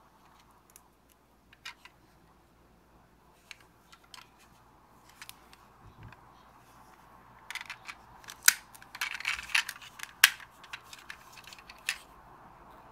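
Handling noise from a small diecast alloy toy pickup truck: light scattered clicks and taps, then a busier run of sharp clicks in the second half as its parts, such as the front door, are worked.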